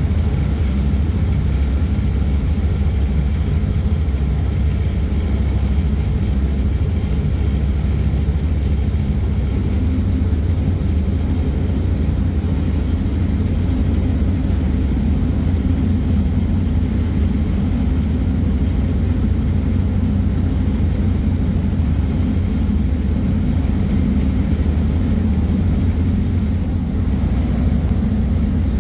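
Manly ferry's engines running under way, a steady low drone, with the rush of the churning wake behind the stern.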